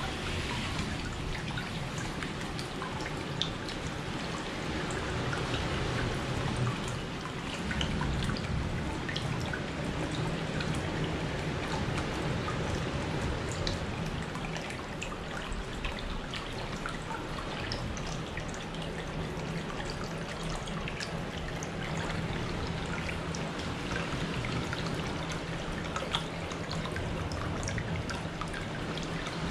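Hot-spring water pouring from a spout into a brimming open-air bath: a steady splashing stream close by, with small drips and plops on the water surface.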